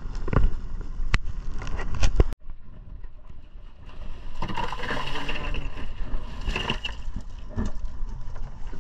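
Small boat running over choppy sea: a steady rush of wind and water with several sharp knocks as the hull meets the waves. After an abrupt cut, a quieter stretch of rustling and crunching as ice is shaken from a plastic bag over fish in a cooler.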